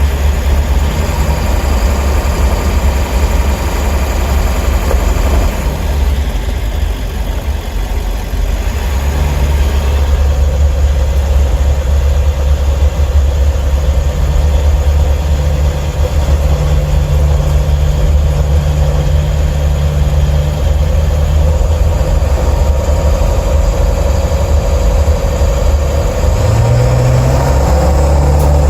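7.3-litre Powerstroke V8 turbodiesel running steadily as the van drives, heard from inside the cab by the engine cover, with a strong low rumble and the engine note shifting near the end.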